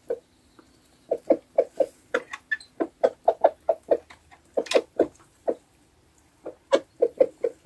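Chickens clucking in quick runs of short notes as they feed on scattered grain, with a brief pause about six seconds in.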